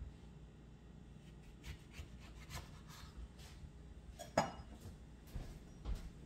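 A kitchen knife cutting through a lemon and tapping a plastic cutting board, followed by faint scattered knocks and rubbing of things being handled on the counter. About four and a half seconds in comes one louder knock with a brief clink.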